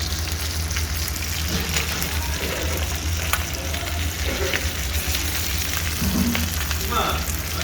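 Fish frying in hot oil: a steady sizzle with scattered crackles and pops, over a low steady hum.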